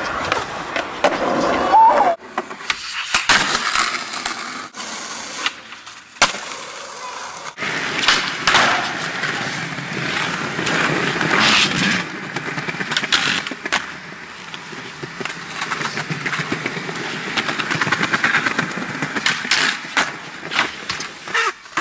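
Skateboard wheels rolling on concrete, broken by many sharp clacks of the board popping, hitting and landing on the ground and ledges, with a few brief breaks between them.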